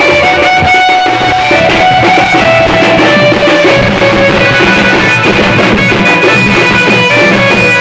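Loud, distorted festival band music: drums beaten with sticks, with a held melody line that steps from note to note above them.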